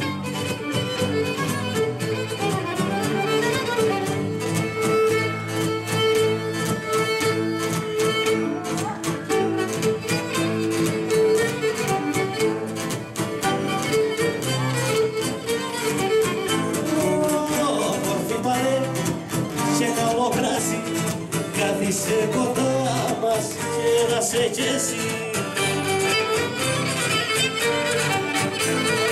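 Traditional Cretan instrumental music: a bowed lyra plays the melody over a laouto picked with a plectrum and a strummed acoustic guitar.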